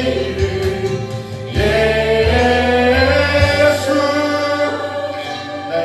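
A small worship team, a man and two women, singing a Korean praise song into microphones with acoustic guitar accompaniment, in long held notes.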